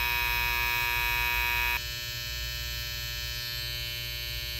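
Babyliss Snap FX cordless hair trimmer running with a steady buzz, then, after a sudden cut about two seconds in, the Stylecraft Saber trimmer running with a quieter buzz. The Snap FX is the louder of the two, about 74 dBA against about 70 dBA for the Saber.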